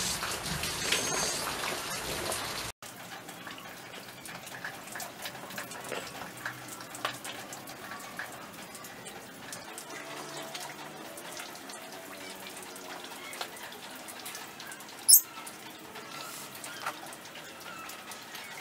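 Soft taps and clicks of small wooden parts and a metal nail being handled, over a steady background hiss that drops abruptly a few seconds in. One short, sharp, very high chirp sounds about fifteen seconds in.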